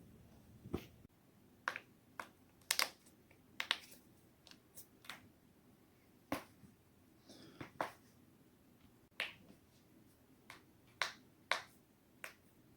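Neck and back joints cracking: about eighteen sharp cracks and pops, irregularly spaced, some coming in quick pairs.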